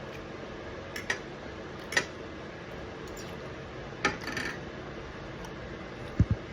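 Scattered clicks and clinks of utensils on dishes, a few seconds apart, with two low thumps near the end, over a steady background hum.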